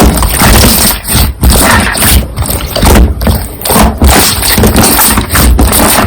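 Slime being pressed and squished by hand, loud and continuous with short breaks every second or so.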